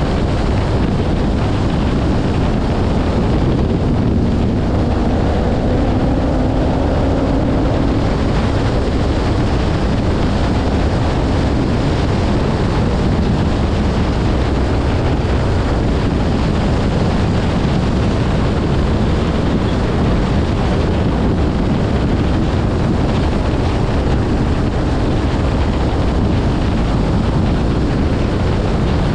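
Steady wind and road noise of a 2023 Dodge Challenger widebody cruising at highway speed, with a faint engine hum that rises slightly a few seconds in.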